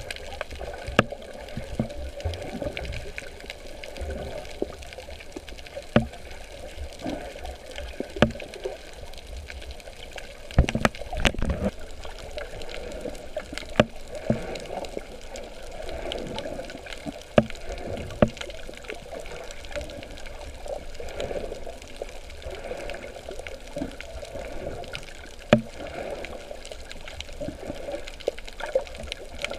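Sea water sloshing and bubbling around a camera while snorkeling, a steady churning wash with occasional low surges. Sharp clicks or knocks come now and then, a handful over the stretch.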